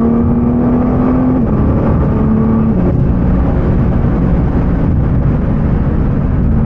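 Nissan GT-R R35's twin-turbo V6 pulling hard, heard from inside the cabin: the engine note holds and climbs, falls back about a second and a half in, rises again and drops near three seconds, then settles into a steady rumble mixed with heavy tyre and road noise.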